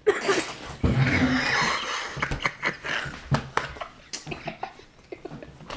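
Two boys laughing hard in breathy, broken bursts, loudest in the first couple of seconds.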